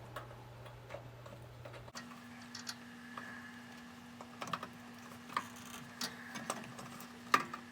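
Scattered small clicks and taps of hands working wire connectors into a fuse holder, over a faint steady hum; the sharpest click comes near the end.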